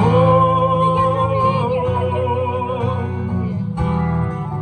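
Live music played through stage PA speakers: a solo performer strumming an acoustic guitar and singing, holding one long note for the first few seconds before moving on to shorter notes.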